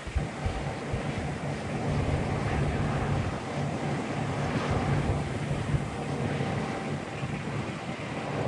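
Farm machinery engine running steadily with a constant low hum, with wind rumbling on the microphone.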